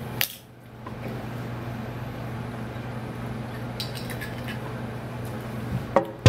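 A steady low hum, with a sharp click just after the start, a few faint clicks around four seconds in as a glass soda bottle is raised and sipped from, and a knock near the end as the camera is handled.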